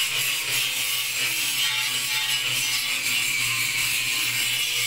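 Background music, a guitar track with a bright, hissy top, starting abruptly at a cut.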